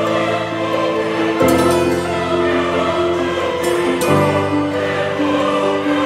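Background music: a choir-like ensemble singing long held chords, changing chord about a second and a half in and again about four seconds in.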